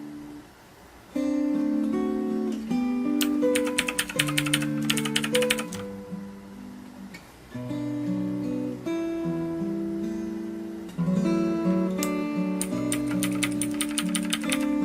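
Background music played on acoustic guitar, with plucked notes and two stretches of fast, dense strokes.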